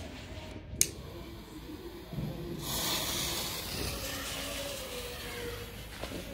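Weco Bugano Color Stars firework fountain hissing steadily as it sprays sparks, starting about two and a half seconds in. It follows a sharp click about a second in.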